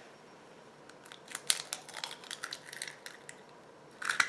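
Eggshell crackling as fingers pull a freshly cracked egg apart over a plastic tray: a run of small, sharp clicks, with a louder cluster near the end.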